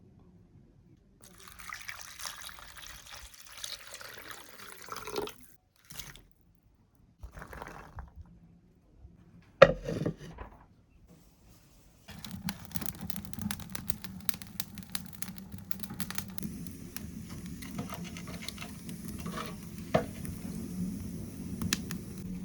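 Water being poured in a few short runs, and a sharp knock about ten seconds in. From about twelve seconds on, steady sizzling with many small crackles, like food frying in a pan.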